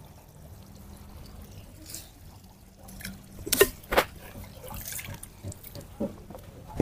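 Water splashing and dripping, with two sharp splashes close together about halfway through and a few lighter splashes around them.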